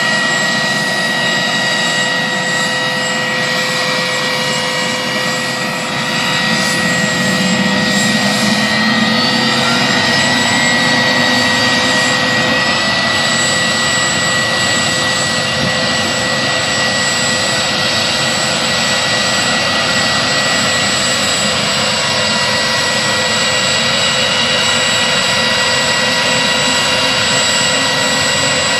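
A large firefighting helicopter's turbine engines and rotors running, with a steady high whine made of several held tones over a dense rushing noise. About six seconds in, a whine rises in pitch and the sound gets a little louder, then it holds steady.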